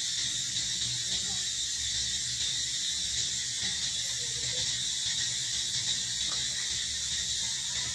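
Steady, high-pitched drone of insects, unchanging throughout.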